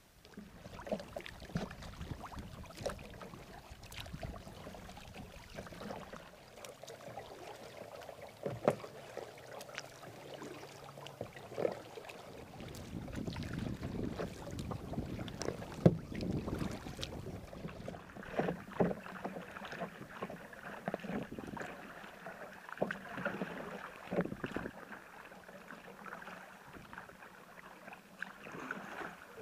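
Kayak paddling on calm water: the paddle blades dipping and splashing with each stroke, with dripping water and short light knocks.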